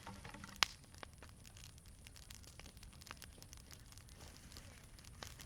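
Wood campfire crackling: many small snaps and clicks over a low, steady rumble of flame, with one sharp pop about half a second in.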